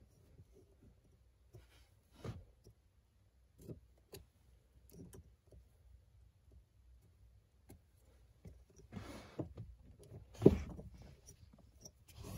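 Sparse light clicks, taps and rustles of hands handling a rubber-faced pedal cover against a car's metal clutch and brake pedals while marking its holes with a Sharpie marker. One sharper knock comes about ten and a half seconds in.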